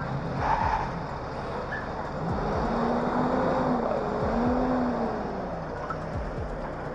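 Passing street traffic: cars and a tow truck driving by, a steady rush of road and engine noise with an engine hum that swells and fades twice in the middle.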